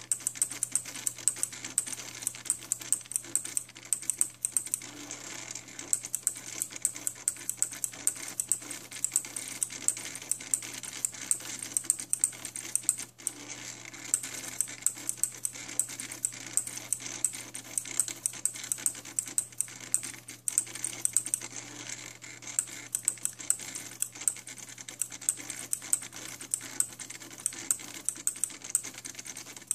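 Homemade mini SCARA arm pen plotter drawing letters at high speed: rapid, irregular clicking and ticking from its small motors and arm as it moves, over a steady low hum.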